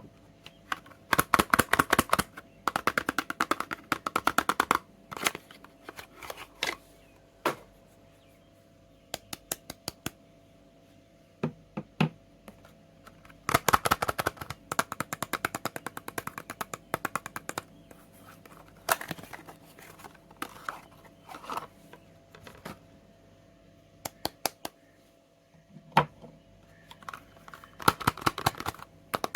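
Close-up soap unboxing handling sounds: several bursts of rapid crackling clicks, with scattered single taps and ticks between them.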